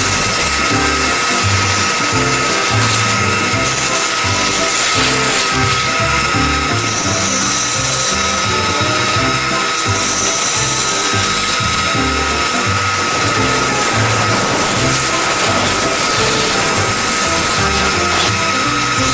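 Background music over a band saw running with a steady whine as its blade cuts through a glued-up scrapwood block.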